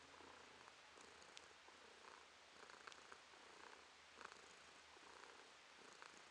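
Domestic tabby cat purring steadily and faintly while being scratched under the chin, the purr swelling and fading with each breath about once a second.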